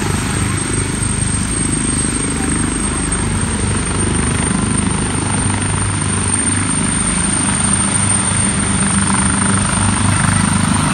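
Twin-turbine ambulance helicopter (Leonardo AW139) running at full rotor speed on the ground and starting to lift off: a rapid low beat from the main rotor over a thin, high, steady turbine whine, growing a little louder near the end.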